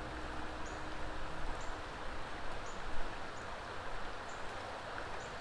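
Steady rush of water pouring over a spillway, with short high chirps repeating about every three-quarters of a second above it.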